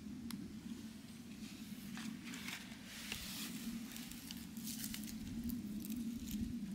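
Irregular rustling and small handling noises over a steady low hum, with a sharp click near the start and the rustling getting busier towards the end.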